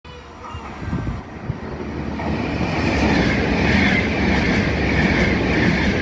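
CP Alfa Pendular electric tilting train running past a station platform. Its noise builds over the first three seconds, then holds steady and loud.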